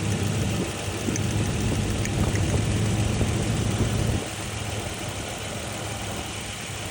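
Toyota Land Cruiser engine idling with a steady low hum. It drops noticeably in level about four seconds in, then carries on idling.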